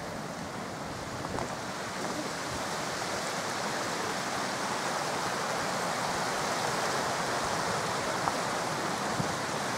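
Rushing water of a fast-flowing beck and its waterfalls, a steady hiss that grows gradually louder over the first few seconds and then holds.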